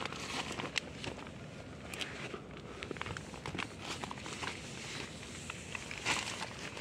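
Soft rustling and shuffling of tent nylon and a plastic groundsheet tarp as someone moves out of a small tent, with scattered light crinkles and ticks.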